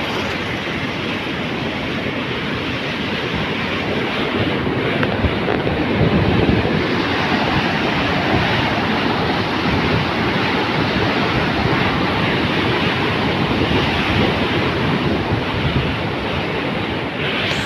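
Floodwater rushing steadily, a continuous even rush of water.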